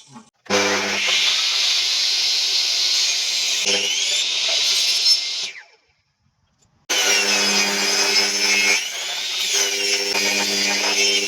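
An electric power tool running on wood in two long runs, about five seconds and then about four, with a short silent gap between.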